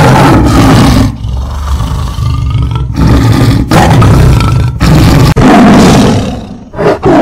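Tiger roaring loudly, several roars in a row, with a quieter stretch from about one to three seconds in.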